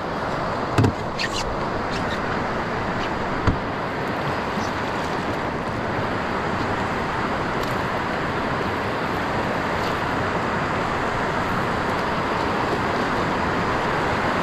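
Steady rush of river water pouring over a low weir and its white-water chute, with two sharp knocks about one and three and a half seconds in.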